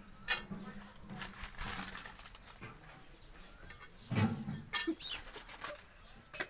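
Paper and plastic packaging rustling as new tractor disc-brake friction plates are unwrapped and handled, with scattered sharp clicks and clinks of the plates.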